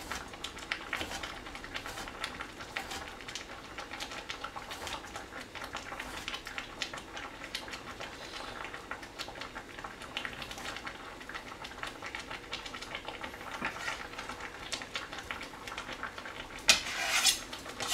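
Kitchen knife slicing kiwi on a plastic cutting board: a run of light, irregular taps. A louder brief sound comes near the end.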